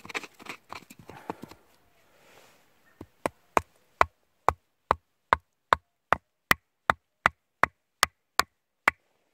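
Wooden peg being hammered into a gap between the logs of a bench: after some handling rustle, about sixteen sharp wooden knocks at a steady two and a half a second, driving the peg in tight to stop the logs wobbling.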